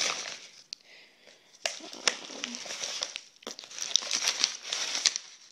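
Plastic and paper mail packaging rustling and crinkling as it is handled, in irregular stretches with sharp crackles and short pauses.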